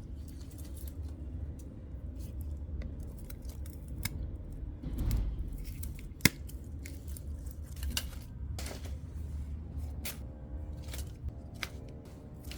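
Garden shears snipping plants: irregular sharp cuts and clicks, with one louder snap about six seconds in.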